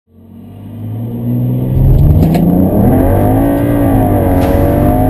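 Tuned BMW 335i's N54 twin-turbo straight-six fading in, heard from inside the cabin; about two seconds in its pitch rises and then wavers up and down as it revs.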